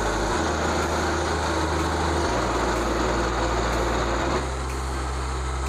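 Small engine of a portable band sawmill running steadily as it cuts a log, mixed with background music whose held bass notes change about every two seconds.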